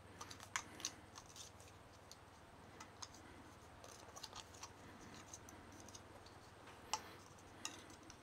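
Faint crinkling and scattered small clicks of PTFE thread tape being pulled off its plastic spool and wound onto a brass tap's threads.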